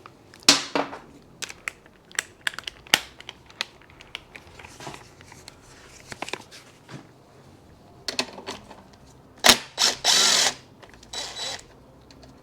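Metal clinks and knocks of hand tools and parts being handled during a motorcycle front-end teardown, with a short burst of ratcheting about ten seconds in.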